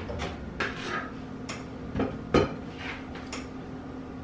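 Kitchen clatter: about six sharp, irregular knocks and clinks of utensils and cookware, the loudest about two and a half seconds in, over a faint steady hum.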